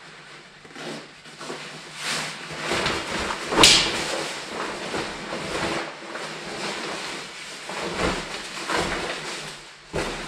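Textile motorcycle jacket being handled: fabric rustling and rubbing, with one sharp, loud noise about three and a half seconds in and a few short knocks near the end.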